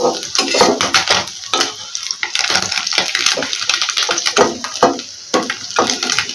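Small fish frying in hot mustard oil in a kadhai, the oil sizzling and crackling, with a metal spatula clicking and scraping against the pan as the fried fish are lifted out.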